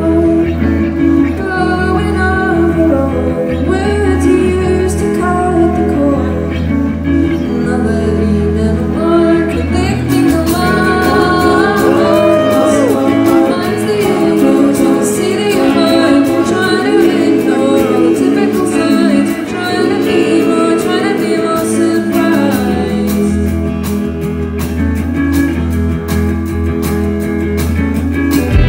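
Live rock band playing: a woman singing lead over electric guitar and drums, heard loud in a large hall.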